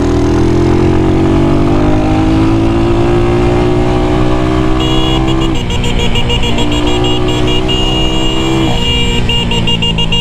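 A Missile 250cc timing-chain motorcycle engine pulling under acceleration, its pitch climbing steadily. The pitch drops sharply about halfway through and again near the end as the bike is shifted up through its six-speed gearbox.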